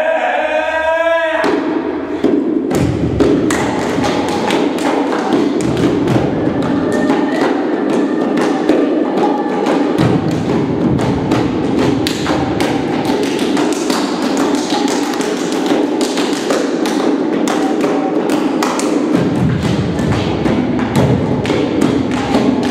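Many quick, irregular thumps and taps, as performers beat on a wooden stage floor, over a steady drone.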